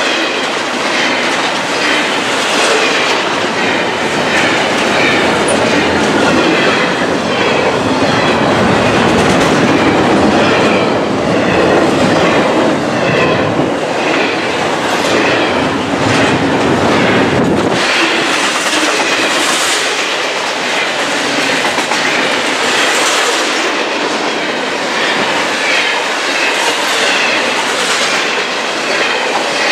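Double-stack intermodal freight cars rolling past close by at speed: a steady clatter of steel wheels over the rail joints over a deep rumble, with wavering squeals from the wheels. The deep rumble eases a little past the middle.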